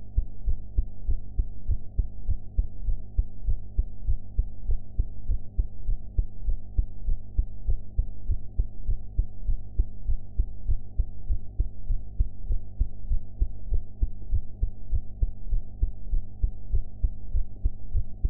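A woman's heartbeat, close-miked: steady, even heartbeats with deep thuds and nothing above the low range, over a faint steady hum.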